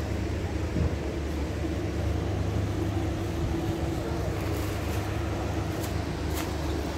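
Steady low mechanical hum with one constant note, over the indistinct background noise of a large hall; a couple of brief faint clicks about six seconds in.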